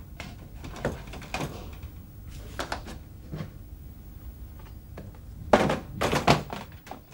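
Clunks and knocks from a metal box-shaped appliance and its loose parts being handled and set down on a table. Scattered light knocks lead up to two louder thunks near the end.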